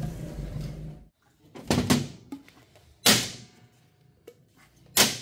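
Sharp knocks and clacks of metal fuel injectors and their fuel rail being handled and set down on a worktable. There are two close together about two seconds in, the loudest a second later, and another near the end. Before them, a low steady hum cuts off suddenly about a second in.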